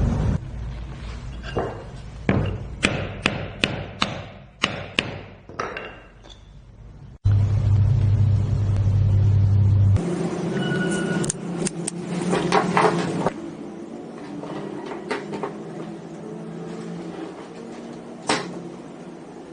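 Sharp metal tapping, a quick series of knocks as a new ball bearing is driven into an electric die grinder, then handling clatter of the parts. A steady low hum runs for about three seconds in the middle, cutting in and out abruptly.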